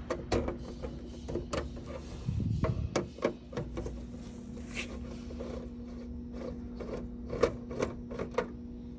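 Screws being backed out of a copier's rear cover with a Phillips screwdriver: scattered small clicks and ticks of handling, with a steady low hum underneath.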